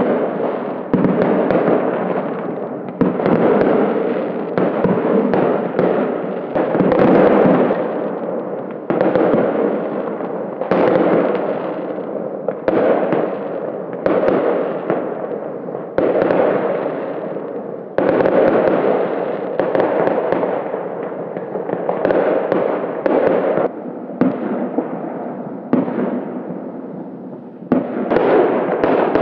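Aerial fireworks going off in a steady barrage: sharp bangs about every second or two, each one fading away in a long trail of noise that runs straight into the next.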